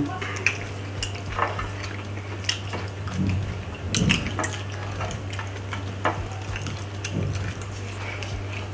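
Eating by hand close to the microphone: scattered soft clicks and taps of fingers scooping food from plates and dipping into soup, over a steady low hum.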